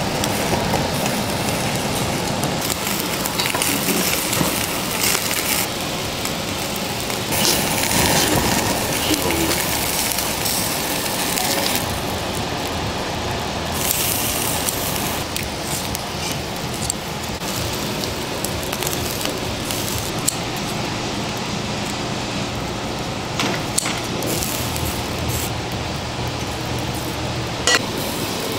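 Lamb chops sizzling over charcoal on a wire grill, a steady hiss with surges of louder sizzle now and then. A few sharp clicks of metal tongs on the grate come near the end.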